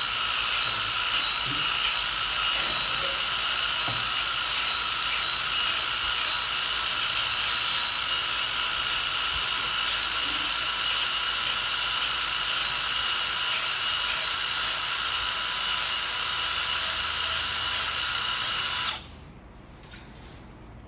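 Makita DBS180 cordless belt sander (band file) running at a steady speed with a high-pitched motor and belt whine, then switched off about nineteen seconds in, cutting off suddenly.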